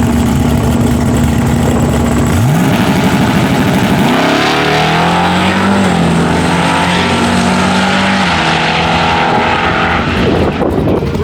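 Drag car engine running, with a quick rev about two seconds in. From about four seconds in it climbs hard in pitch and holds at high revs at full throttle, dropping off near the end.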